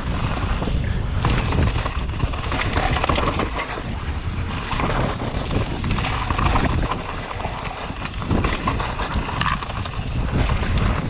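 Pivot Phoenix downhill mountain bike ridden fast over a loose, rocky trail. The tyres crunch over gravel and stones and the bike rattles, with wind buffeting the microphone.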